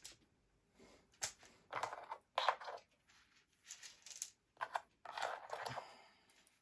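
Tarot cards and runes being handled on a table: a string of short rustling, sliding noises.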